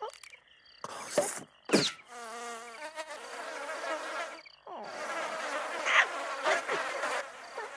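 Cartoon sound effects: a wavering buzz like a flying insect, held for several seconds with a brief break midway, after quick sliding whistle-like sweeps near the start.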